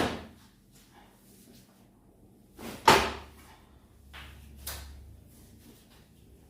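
Short, sharp knocks during a chiropractic hip-stretch manoeuvre on a patient lying on a treatment table: one right at the start, a louder one about three seconds in and a fainter one near five seconds.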